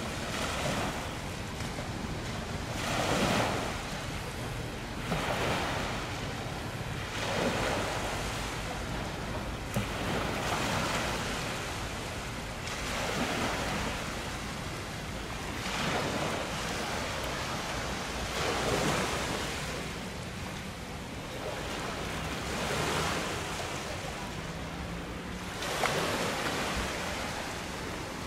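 Sea waves washing in repeated surges every two to three seconds, with wind rumbling on the microphone.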